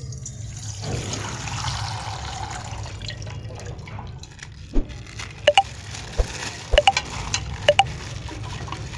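Coloured water pouring and splashing out of a punctured plastic bag, followed by a run of sharp drips and clicks.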